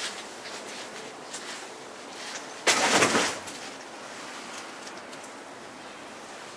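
Steady outdoor background noise with scattered light clicks, broken a little under three seconds in by one sudden, loud rush of noise that lasts under a second.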